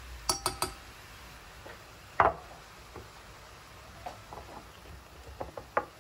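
Hard objects being handled: three quick clicks near the start, one louder knock about two seconds in, then a few lighter taps and clinks.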